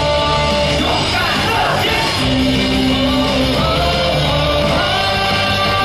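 Stadium cheer music with a crowd of fans singing and shouting along, loud and continuous, with held melodic notes.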